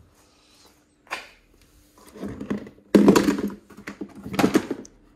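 Knocks and clattering of parts being handled: one sharp knock about a second in, then a run of rattling clunks, loudest around three seconds in and again near the end.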